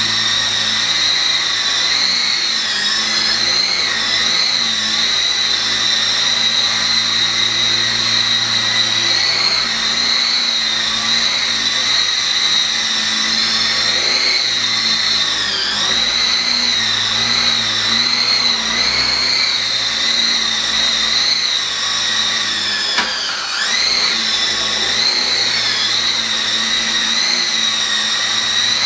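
E-sky Lama coaxial RC helicopter's twin electric motors and gears whining steadily as it flies, the pitch wavering with throttle and dipping sharply about 15 seconds in and again about 23 seconds in, with a brief drop in loudness at the second dip.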